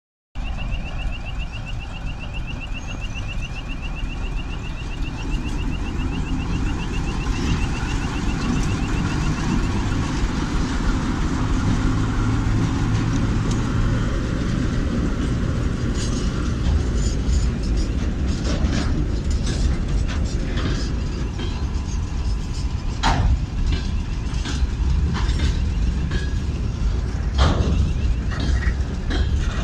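A shunting train rolls past on the rails, its engine rumbling low and its wheels knocking and clicking over the track more and more from about halfway through. For roughly the first ten seconds a fast-pulsing electronic warning tone sounds over it.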